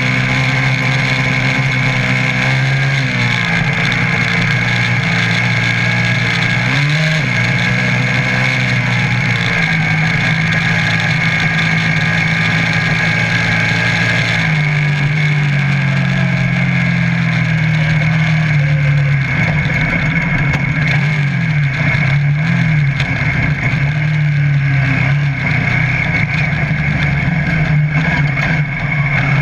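Piranha off-road buggy's engine running under way, its pitch dipping and climbing again several times as the throttle is eased and reapplied, over a steady rush of wind and road noise.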